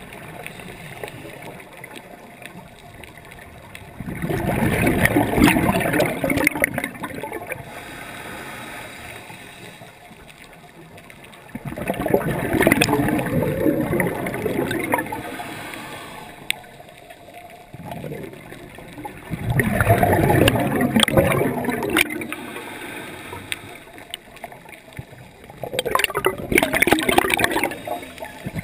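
Scuba regulator exhaust bubbles underwater: four bursts of bubbling, one breath about every seven or eight seconds, with quieter stretches between them as the diver breathes in.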